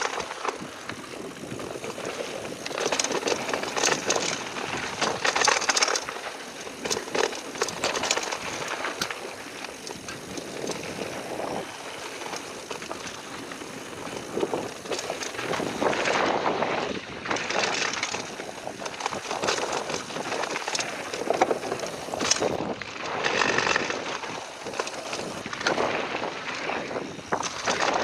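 Mountain bike (Ghost FR AMR X6) riding down a bike-park trail: tyres crunching over dirt and gravel, with many clattering knocks and rattles from the bike as it takes bumps, swelling and fading every second or two, with wind on the microphone.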